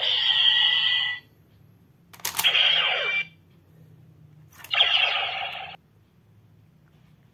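Recast DX Decadriver toy belt playing through its small speaker during its Kamen Rider Den-O card sounds. The electronic audio already playing cuts off about a second in. Then twice a sharp plastic click is followed by about a second of loud electronic sound effect.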